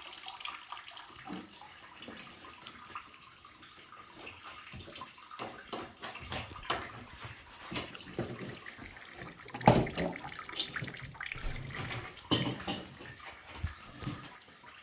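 Water running, with scattered clicks and knocks of tools and metal parts being handled; a sharp knock about ten seconds in is the loudest.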